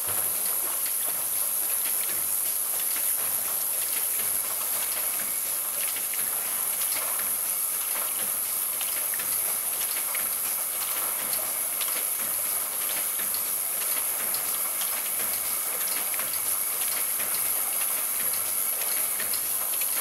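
CQP1 ultrasonic bottle washing machine running: a steady hiss of water and air with scattered clicks and knocks from the bottles and mechanism, and a high, steady whine over it.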